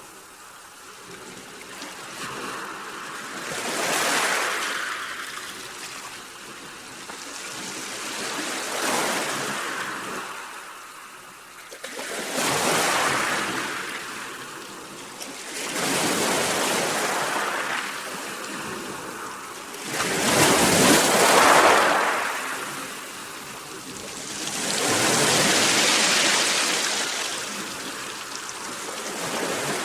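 Sea waves breaking and washing on the shore, a hiss of surf that swells and ebbs about every four to five seconds, the loudest wave a little past the middle.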